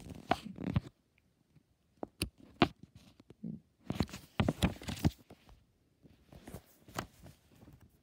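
Scattered soft crinkles, taps and rustles of a picture book's paper pages being handled and turned, with a denser cluster of crackles about four to five seconds in.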